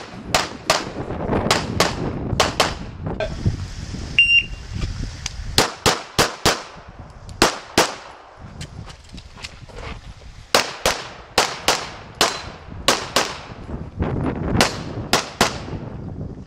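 Handgun shots fired in rapid strings with short pauses between them, as a competitor engages targets on a practical shooting course. Around four seconds in, a short high beep sounds, and the shooting picks up again soon after.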